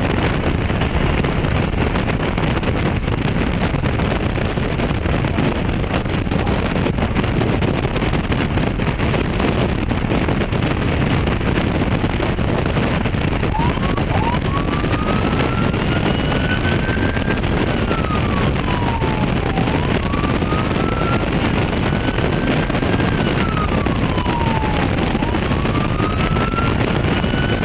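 Steady wind and road rush from a moving vehicle. About halfway through, a wailing siren starts, rising and falling slowly, roughly one cycle every five to six seconds.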